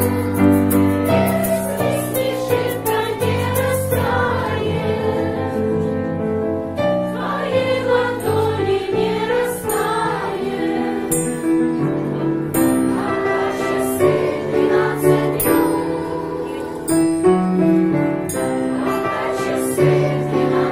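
A song performed live: piano with voices singing together. A shaker rattles quickly in the first few seconds, and then sparse high jingling strikes join in.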